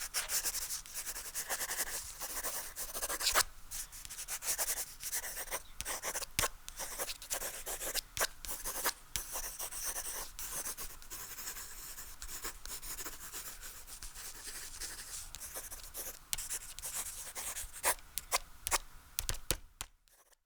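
Dry scratching and rubbing: an irregular run of scrapes and small sharp clicks that cuts off suddenly near the end.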